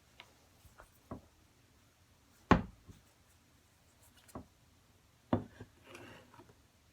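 A handful of separate knocks and taps, the loudest about two and a half seconds in and another strong one after five seconds, with a short rustle near the end.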